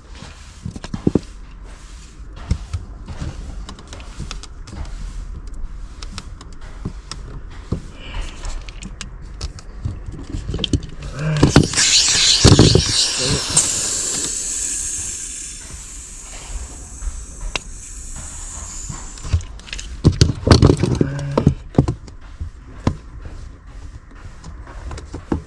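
Compressed gas hissing into a condensate drain line to blow out a clog. A loud burst about halfway through fades over several seconds, with scattered knocks and clicks of handling before and after.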